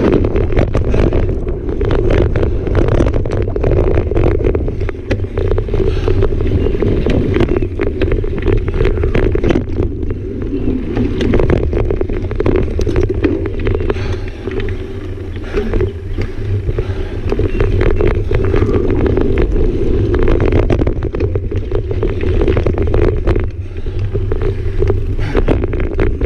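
Mountain bike riding down a dirt singletrack: constant wind rumble on the camera microphone and tyre noise on the dirt, with frequent rattles and clicks from the bike over bumps.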